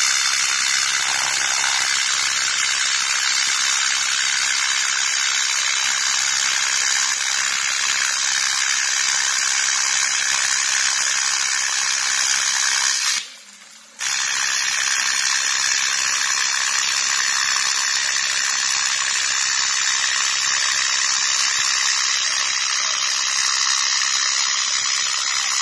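TIG welding arc on aluminum, a steady buzzing hiss. It cuts out about halfway through for about a second, then strikes again and runs on.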